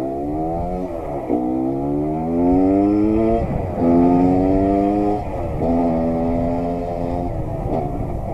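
Suzuki TS125's single-cylinder two-stroke engine pulling away and accelerating, its pitch climbing and then dropping sharply about four times as it shifts up through the gears.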